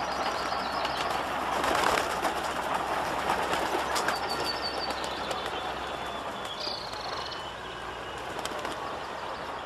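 New Holland TX63 combine harvester running steadily as it cuts rice, a dense, continuous machine noise. Short, rapid, high-pitched bird calls come twice over it, about halfway through and again later, among flapping wings as a flock of egrets takes off.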